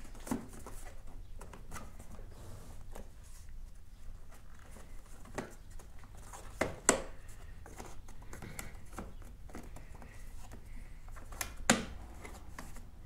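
Scattered light clicks and knocks of hands working on a scooter's plastic handlebar controls and wiring, over a faint low hum. Two sharper knocks stand out, one about seven seconds in and the loudest near the end.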